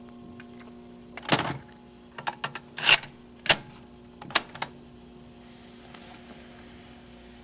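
Plastic clicks and clunks from a portable cassette recorder as a cassette is loaded and a piano-key button is pressed down, over a steady low hum. About two seconds before the end, a faint hiss comes in as the tape starts playing.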